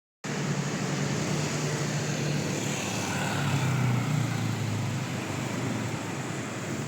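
A motor vehicle engine running with a steady low hum under a rushing noise, swelling slightly midway through.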